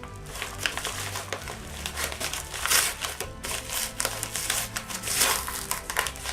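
Packaging being unpacked by hand, with irregular crinkling and rustling as the contents of a mail-order parcel are pulled out.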